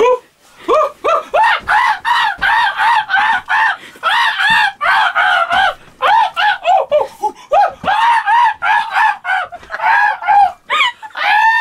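Pet monkey screeching in a fast run of high-pitched calls, three or four a second, each rising and falling, with a few short breaks.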